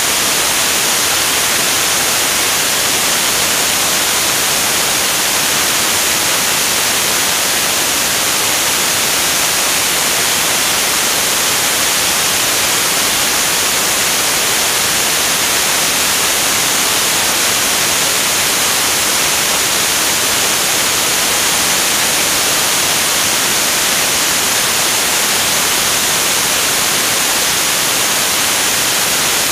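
Steady rushing hiss of the airstream blowing over a camera mounted on the wing of a jet in flight.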